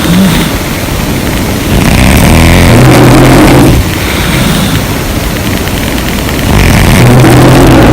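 A sleeping woman snoring loudly: two long snores with a fast low flutter, the first starting about two seconds in and lasting about two seconds, the second starting about six and a half seconds in, with quieter breathing between.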